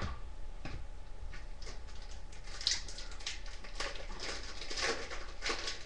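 Hockey trading cards being thumbed and slid one past another in the hands, making a run of soft, papery swishes and flicks, most of them in the second half.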